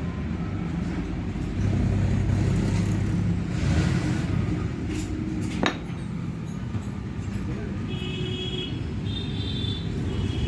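Tractor diesel engine idling steadily, a little louder for a couple of seconds early on, with a sharp click about halfway through and a few brief high beeping tones near the end.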